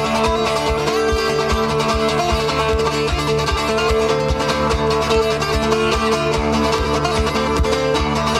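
Plucked acoustic guitar music, busy and bright, over a steady low thumping beat about three times a second.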